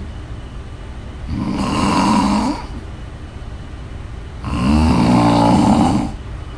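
A woman snoring loudly in her sleep: two long snores, one starting just over a second in and a longer one starting about four and a half seconds in, with quieter breathing between.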